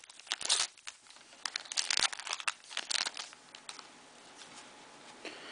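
Foil trading-card pack wrapper crinkling as it is peeled open and the cards are pulled out. It is a run of irregular crackles that dies down about two-thirds of the way through.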